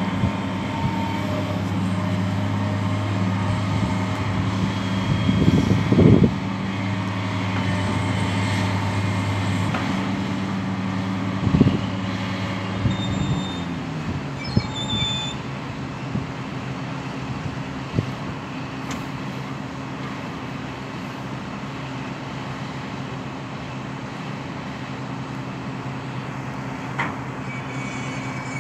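Hitachi Zaxis 470 LCH excavator's diesel engine running under hydraulic load with a steady hum, its note dropping slightly about halfway through as the machine swings round with an empty bucket. Heavy knocks sound about six and twelve seconds in, and a few brief high squeaks follow shortly after the engine note drops.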